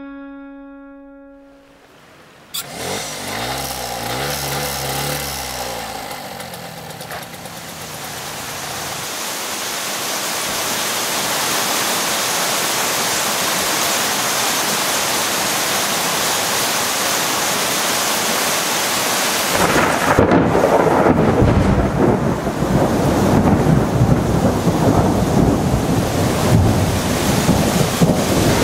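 Thunderstorm: steady heavy rain with a low rumble of thunder a few seconds in. The rain grows louder and harder about twenty seconds in.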